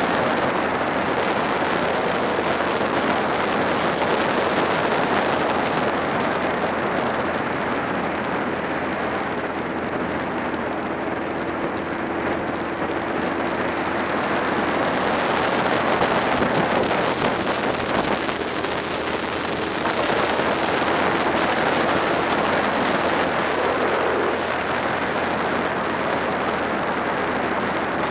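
Wind rushing over the microphone of a Suzuki SV650 motorcycle under way at a steady speed, with the bike's V-twin engine running underneath. A faint steady hum joins about ten seconds in.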